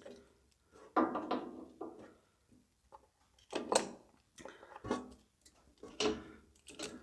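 Scattered knocks, clunks and short scrapes of hand tools and metal parts being worked in a cramped spot on a tractor, coming in separate bursts every second or so.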